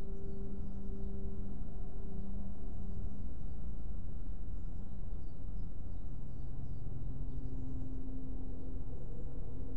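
Slow ambient background music of long held notes over a steady low rumble, with faint bird-like chirps high above.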